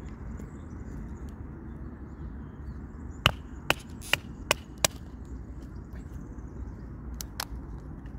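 A wooden baton knocking on the spine of a small survival knife driven through a dry pine stick to split it (batoning): five sharp knocks a little under half a second apart about three seconds in, then two more near the end.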